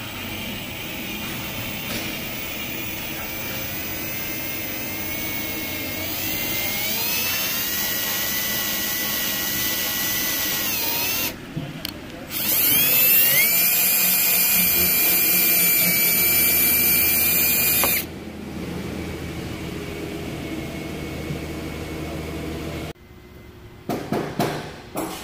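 Cordless drill whining as it bores out a rusted steel license plate screw, the motor speeding up over the first several seconds. It stops briefly about 11 seconds in, then restarts and quickly climbs to a louder, higher-pitched run before dropping off. A few short metallic clinks come near the end.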